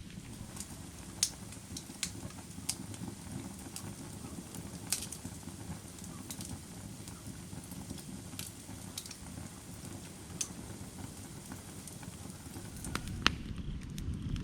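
Hot firewood burning: irregular sharp crackles and pops over a steady low rumble of the fire. The rumble grows louder near the end, where the loudest pop comes.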